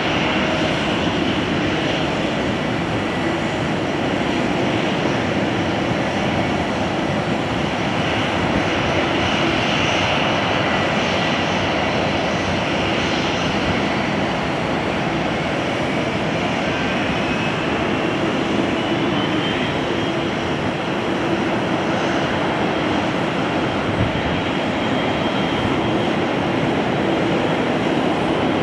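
Twin-engine widebody jet airliner landing: steady jet engine noise through the final approach, touchdown and roll-out, with a faint rising whine a little past the middle.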